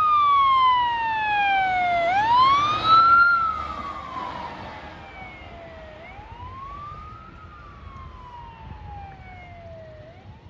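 Ambulance siren on wail, sweeping slowly up and then sliding down, about one cycle every four seconds, as the ambulance passes and drives off. It is loud at first and fades steadily from about three seconds in as it gets farther away.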